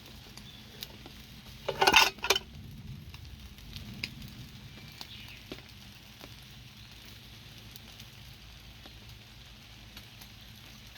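Campfire crackling and sizzling faintly, with scattered small pops. A brief, loud noise in two quick parts comes about two seconds in.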